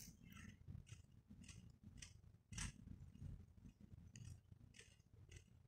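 Near silence with a few faint, short rustles and soft clicks of handling, one a little louder about two and a half seconds in.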